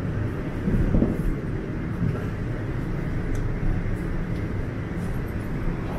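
Steady low rumble and hum of a subway train standing at a terminal station platform, with a few faint knocks.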